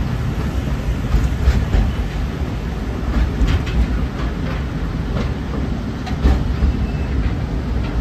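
Narrow-gauge forest railway train running, heard from inside an open-sided passenger car: a steady low rumble of wheels on rail, with irregular clicks and knocks from the track joints and the car.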